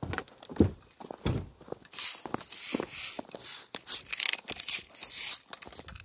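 Close handling noise: a few knocks and thumps, then from about two seconds in a stretch of rustling and scuffling that dies down near the end.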